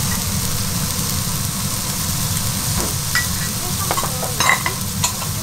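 Butter sizzling and foaming on a hot iron griddle over a steady low hum. Tongs click and scrape against the plate several times as the butter is spread, about three to five seconds in.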